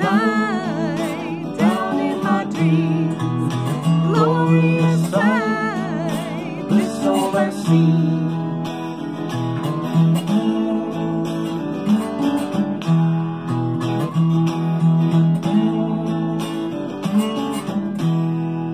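Blues guitar outro on electric guitar and resonator slide guitar: a wavering, sliding melody over the first several seconds, then steady rhythmic playing that ends on a final chord left ringing near the end.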